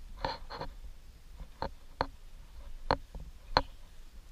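About six short, sharp clicks at uneven intervals, the last two the loudest.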